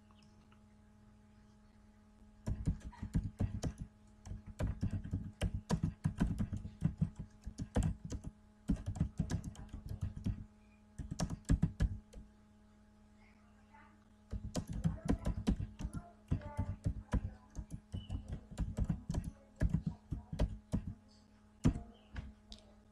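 Typing on a computer keyboard: runs of quick key clicks that start about two seconds in, stop briefly a few times and once for about two seconds midway, over a steady low hum.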